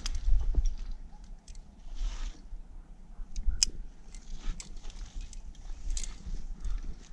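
Climbing gear and a climber's movement: scattered metallic clicks, light knocks and short scrapes over a steady low rumble, with a brief hiss about two seconds in.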